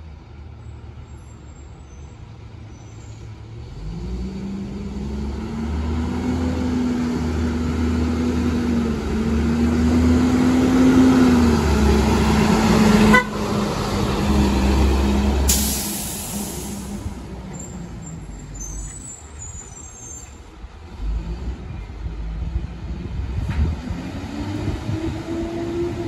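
Diesel engine of a 2003 Blue Bird International 3800 school bus driving past close by: its note builds, peaks, then fades, with a sharp click and a brief high hiss about two-thirds of the way through. Near the end the engine note rises again as the bus pulls away down the street.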